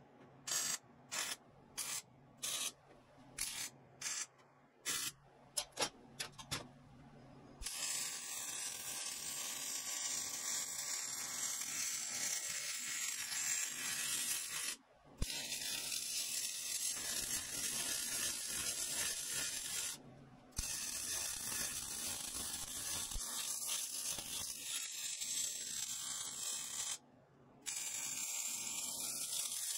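Arc welding on steel: a quick run of a dozen or so short tack welds, each a brief crackling hiss, then longer continuous weld beads crackling steadily, with three short breaks where the arc stops.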